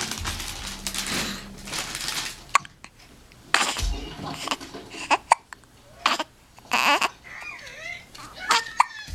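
Infant hiccupping repeatedly, short sudden hiccups every second or two.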